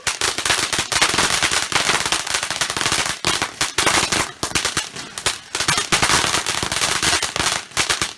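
Ground firework going off in a dense, rapid string of crackling pops and bangs, with a short lull about three seconds in.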